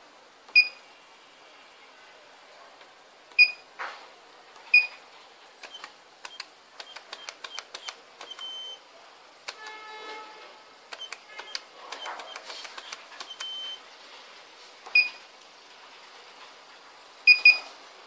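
Burglar alarm control panel and its keypad beeping as keys are pressed: a run of short high beeps for the key presses, with small clicks, and several louder beeps spread through, two close together near the end. About ten seconds in comes a brief cluster of several different tones.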